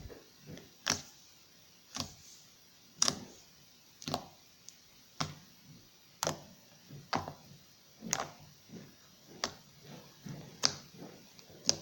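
Homemade slime being worked by hand, giving off sharp pops or clicks about once a second.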